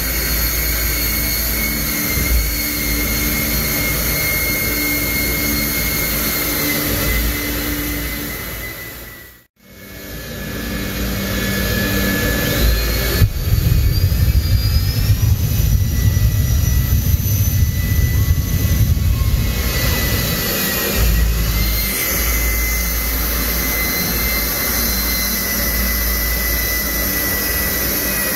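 Jet truck's turbine engine running in place with a steady high whine over a loud rush. It cuts out briefly about a third of the way in, then comes back with a heavier low rumble and a whine that climbs in pitch, as flames shoot from its stacks.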